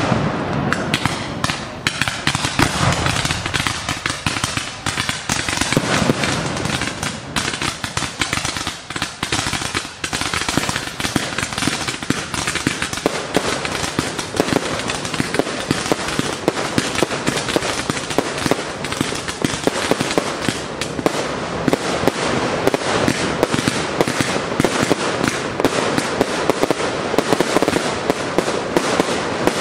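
Fireworks display: a continuous barrage of closely packed pops, bangs and crackles from aerial shells and comets going off, with no let-up.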